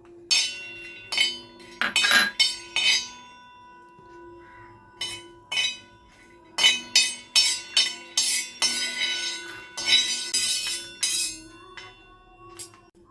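Kitchen utensils clinking and knocking sharply in irregular clusters, dense in the middle to late part.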